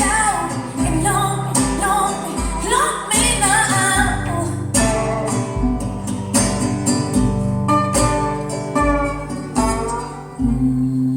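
Recorded pop-soul song playing through KEF LS50 Meta bookshelf speakers: guitar and plucked notes over a steady bass beat, with a voice singing wordless runs in the first few seconds.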